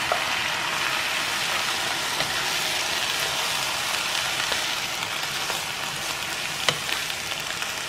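Diced Spam, fish cake and vegetables sizzling in a hot frying pan as anchovy stock is poured in and the mixture is stirred with a wooden spatula. The sizzle eases slightly toward the end, with one sharp tap about seven seconds in.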